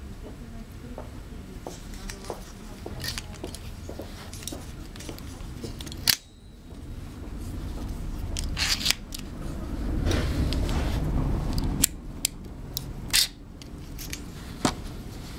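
Folding spring-loaded metal rifle bipod being handled, its legs swung out and extended. Several sharp metallic clicks and snaps sound as the parts lock, the loudest about six seconds in, with rubbing and handling noise between them.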